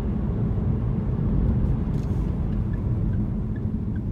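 Car driving through town: a steady low rumble of engine and tyre noise heard from inside the car. Faint, evenly spaced high ticks come in about halfway through.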